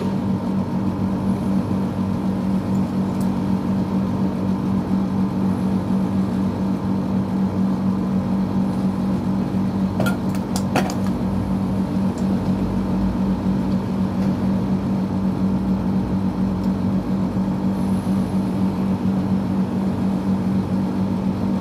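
Split air conditioner's outdoor condenser unit running with a steady hum from its compressor and fan, while its freon charge is being adjusted because it was overcharged and not cooling. A few sharp clicks sound about ten seconds in.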